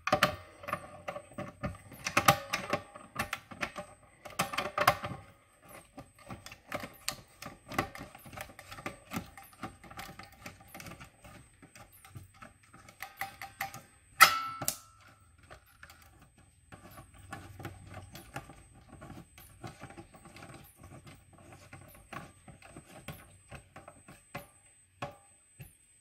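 Metal hex key clicking, scraping and rattling inside the reset mechanism of a Notifier manual fire-alarm pull station as it is reset: a long run of small, uneven clicks, busiest in the first few seconds, with one sharp louder snap about halfway through.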